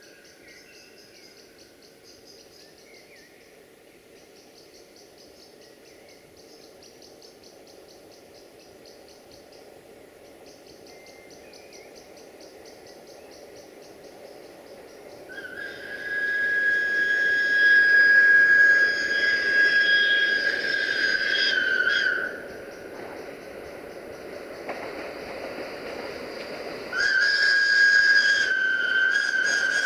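Insects chirping in a fast, even rhythm while a train's rumble slowly grows louder. Then the train's whistle blows a long single-pitched blast of about six seconds that bends down as it stops, and a second blast starts near the end.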